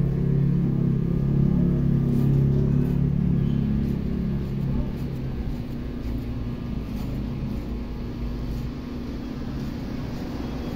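Electric hair clippers buzzing with a steady low hum, easing off about five seconds in.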